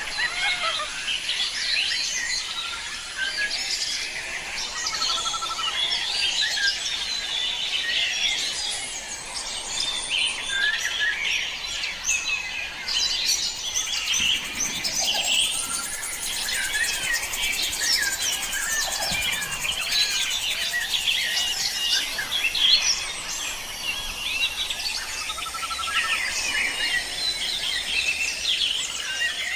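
Many small birds chirping and trilling at once, a dense, continuous chorus of short high-pitched calls.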